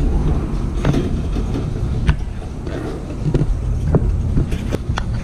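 Metal shopping cart being pushed across a shop floor: a steady low rumble from the rolling wheels, with scattered clicks and rattles from the wire basket.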